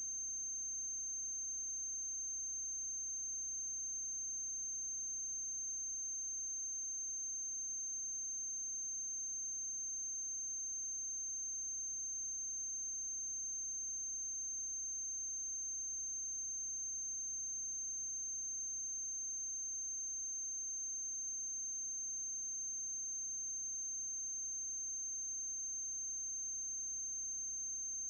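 Steady electrical hum under a constant high-pitched whine, unchanging throughout, with no other sound.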